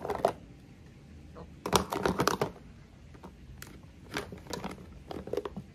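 Plastic cosmetic jars and packaging being handled and moved about, with clicks and rustling in a few short bursts.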